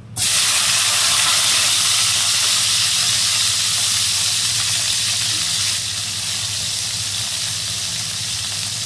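Cut tomato pieces hitting hot oil in a kadai, bursting into a loud sizzle the instant they land, then a steady frying hiss that eases slightly about six seconds in.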